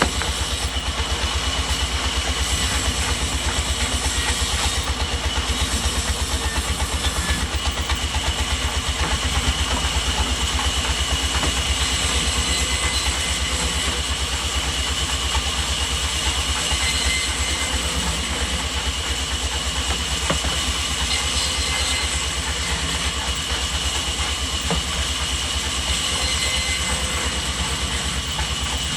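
Sawmill machinery running steadily: a rapid low throb under a constant high whine.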